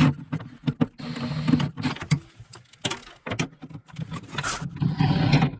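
Quick metallic clicks and clatter of hand tools working on the battery hold-down in a car's engine bay, with two short stretches of hiss, one about a second in and one near the end.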